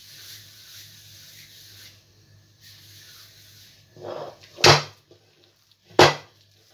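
Two loud knocks about a second and a half apart, near the end, from a glass mixing bowl being handled against a stone countertop as soft dough is scooped out of it. A brief scrape comes just before the first knock.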